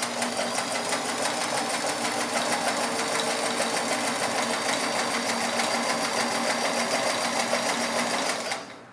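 A Sears Kenmore 158-series all-metal sewing machine with a 1.2 amp motor and two-belt drive, sewing steadily at speed through two layers of marine vinyl with a short stitch. It gives a fast, even clatter of needle strokes over the motor hum, and stops abruptly near the end.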